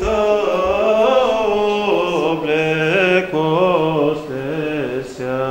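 Orthodox priest chanting a hymn solo in a slow melody that rises and falls.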